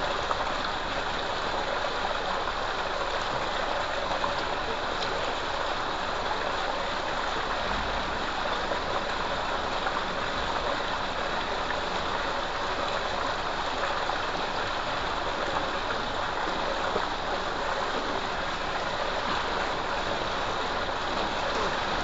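Water gushing steadily from a pipe into a concrete tank, splashing and churning into the pool.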